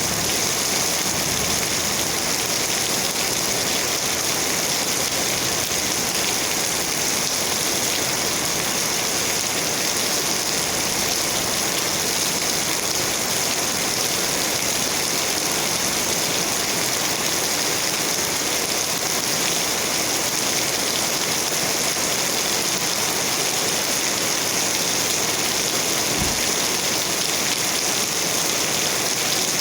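Steady rain, an even unbroken hiss, with one brief low thump near the end.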